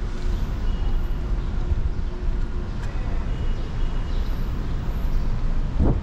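Street traffic: a steady low rumble of cars going by, with a short knock just before the end.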